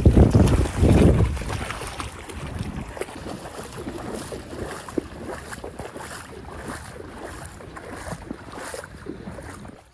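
Wind buffeting the microphone, heavy in the first second or so, then easing to a lighter, rushing wind noise. It cuts off abruptly near the end.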